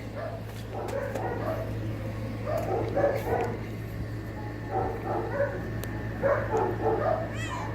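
Dogs barking repeatedly, muffled by distance, over a steady low hum.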